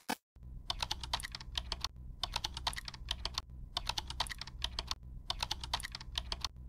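Rapid clicking in four bursts, each about a second long with short pauses between, over a low steady hum.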